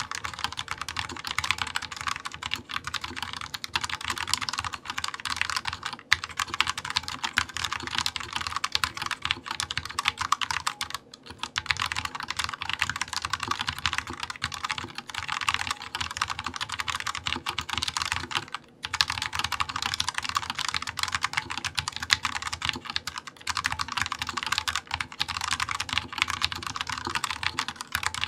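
Typing on a Dareu EK868 mechanical keyboard with Kailh Red linear switches: a fast, dense run of keystroke clacks, with two brief pauses, about 11 and 19 seconds in.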